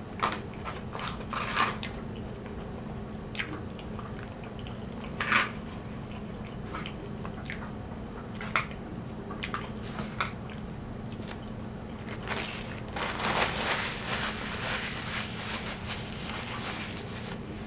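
Eating sounds: chewing of chicken pot pie spooned from a foil tin, with scattered small clicks. From about twelve seconds in, a paper napkin rustles for a few seconds.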